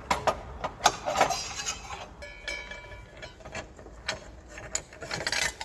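Metal clicks, clinks and scraping as a wrench loosens the arbor bolt on a miter saw and the saw blade is worked off the arbor, with a short metallic ring a little over two seconds in.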